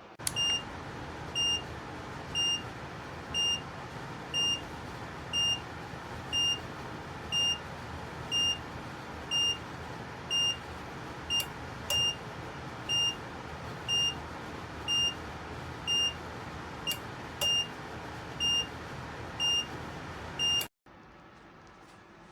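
Electronic beep repeating about once a second over the steady fan noise of an electric ceramic fan heater, with a couple of shorter extra beeps in between; the beeping and the fan noise cut off suddenly near the end.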